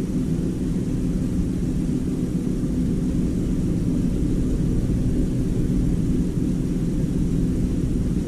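Hitachi Big Drum Slim drum washing machine running, a steady low rumble with a hum from its motor and drum.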